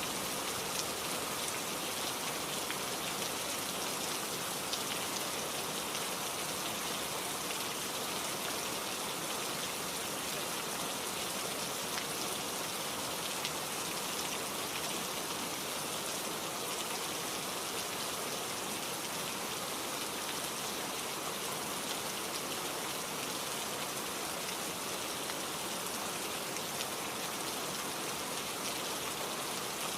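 Steady rain falling, an even hiss with a fine patter of drops that does not change.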